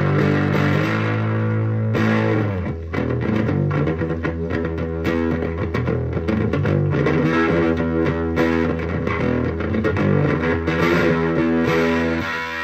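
Gibson Gospel flat-top guitar with a DeArmond soundhole pickup, played through a pair of Fender Champ amps: long ringing chords at first, quicker picked and strummed notes through the middle, and held chords again near the end.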